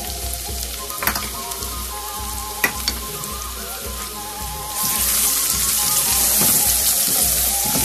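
Diced onions sizzling as they hit hot oil and fried garlic in a frying pan, stirred with a wooden spoon. A couple of sharp knocks of utensils against the pan come in the first three seconds, and the sizzle grows louder about five seconds in as the onions are spread and stirred.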